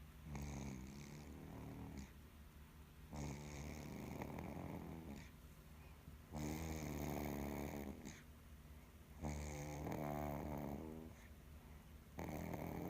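Snoring: five slow, rattling snores, one about every three seconds, each drawn out over a second or two.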